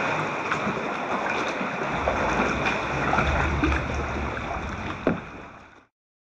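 Choppy sea water splashing and slapping around a plastic kayak's bow in a sea cave, heard through a camcorder's waterproof housing, with a steady low rumble from about two seconds in. A single sharp knock comes about five seconds in, and then the sound fades out to silence.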